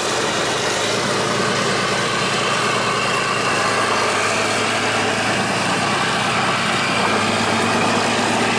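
Leopard 2 main battle tank's V12 diesel engine running steadily as the tank moves slowly along a road, a constant low drone with a wide rushing noise over it.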